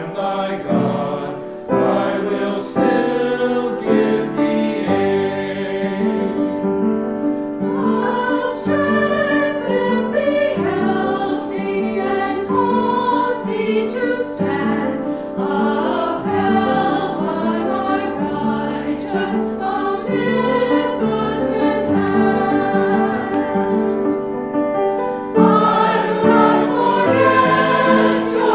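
Choir singing a hymn, with sustained notes that swell louder near the end.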